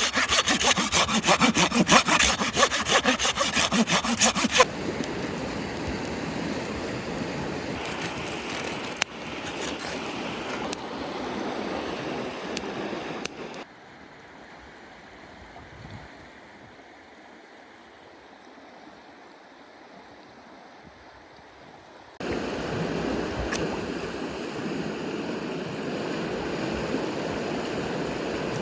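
Wood being sawn in fast, rasping strokes for the first few seconds, then a steady murmur of a mountain stream with a few faint crackles. The stream noise drops to a much quieter hush midway and comes back loud again.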